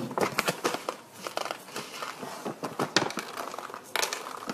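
Large paper rice bag crinkling and crackling as hands open it and reach inside, a close run of irregular crackles with a louder flurry near the end.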